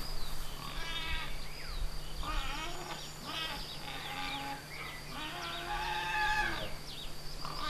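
Several animals calling, with long drawn-out calls at different pitches overlapping in bursts.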